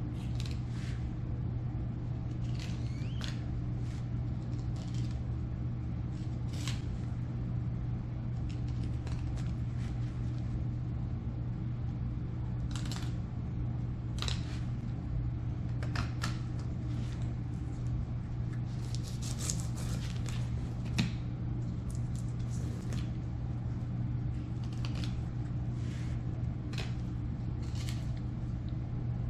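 A knife cutting and scraping along a mangrove snapper's bones while it is filleted, heard as irregular short scrapes and clicks with one louder click near the end. A steady low hum runs underneath.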